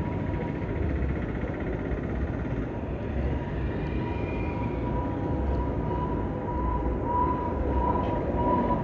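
Busy roundabout traffic: motorcycle, minibus and car engines and tyres passing close by. A steady high tone runs underneath and grows louder in the last two seconds or so.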